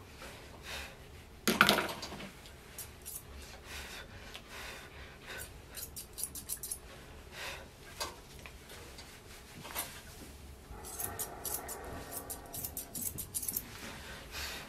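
Grooming scissors snipping through a toy poodle's leg coat: quick, irregular clicks of the blades closing. A brief louder noise comes about a second and a half in.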